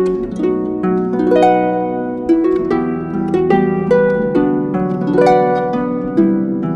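Harp music: plucked notes and chords ringing and dying away one after another in a flowing pattern, played back through LS3/5A loudspeakers.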